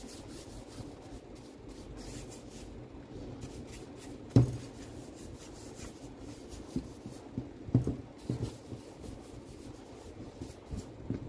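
Bristles of a paintbrush scrubbing over the plastic body and chuck of a rotary hammer drill, a steady scratchy rubbing. A sharp knock sounds about four seconds in, with a few lighter knocks later.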